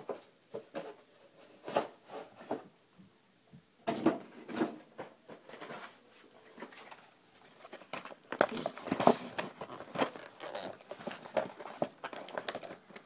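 Rustling and crinkling of toy packaging being handled and opened, with scattered taps and clicks, busiest in the second half.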